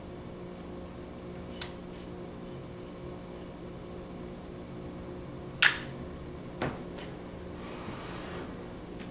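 Nikon D700 camera clicking as it is handled and operated: a faint click early, then one sharp click about halfway through and a duller knock a second later, over a steady low hum.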